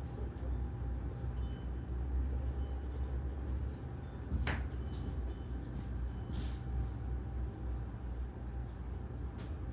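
A steady low rumble with a few light clicks and knocks, the sharpest about halfway through.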